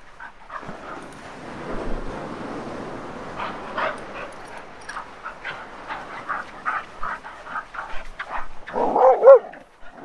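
Leashed dogs whining and yipping in excitement: a run of short high whines, then a loud pair of rising-and-falling whines near the end.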